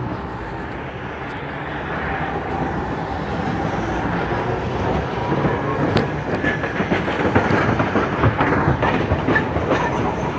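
Alexandria tram running on its rails, growing louder, with wheels clacking and rattling over the track from about six seconds in.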